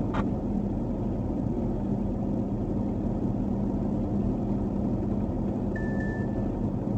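Steady running noise of a vehicle on Treadwright Warden 265/75/16 tyres driving on a snow-covered highway, heard from inside the cab: engine and tyre noise with a steady low hum. A brief click comes just after the start, and a short high whistle comes near the end.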